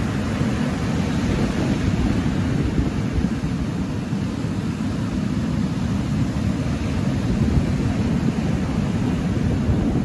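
Waves breaking and washing up over a shingle beach: a steady, loud rush of surf, heaviest at the low end.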